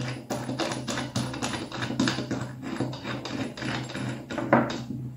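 Light, quick metallic clicking as a bolt and washer are turned by hand into a steel T-nut through plywood, with a steady low hum underneath. There is a sharper click near the end.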